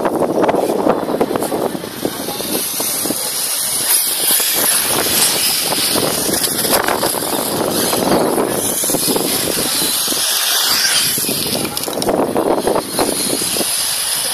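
Electric 1/8-scale RC buggies, including a Serpent 811 BE Cobra, running across grass in a steady, noisy rush with a strong high hiss.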